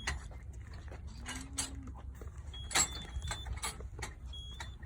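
Cattle barn noise: a steady low hum under scattered clanks and knocks, with a few short high electronic beeps from the handheld scanner reading the chips in the cows' ear tags.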